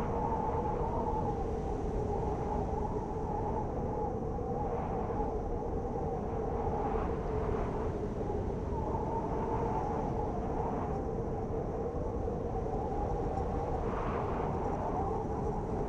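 Blizzard wind howling without a break: a low rumble under a wavering, whistling howl, with brief gusts swelling higher now and then.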